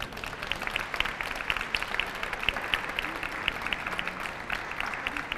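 Audience applauding: steady clapping from a crowd.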